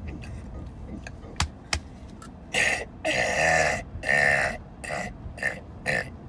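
A man's long, loud burp of about two seconds, pushed out in a few surges, followed by several short bursts. Two sharp clicks come just before it.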